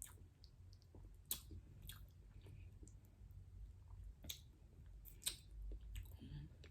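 Faint close-up chewing of seafood-boil food, with several sharp, wet mouth clicks and smacks spaced about a second apart.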